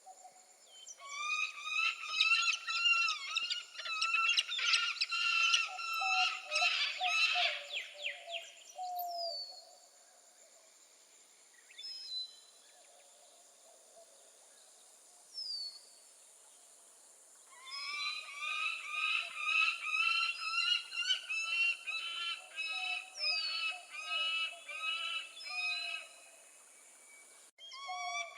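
Peregrine falcon giving harsh, rapidly repeated calls in two long runs, with a few single calls in the quiet gap between them.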